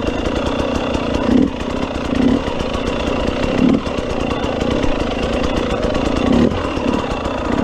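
KTM 300 EXC TPI two-stroke enduro motorcycle engine running at low speed, with short bursts of throttle about four times.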